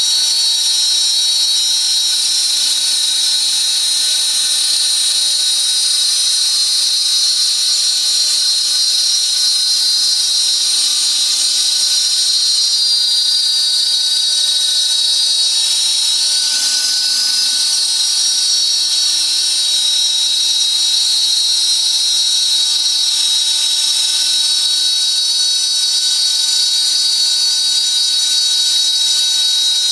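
Spindle of a CNC glass slotting and milling machine running steadily with a high-pitched whine.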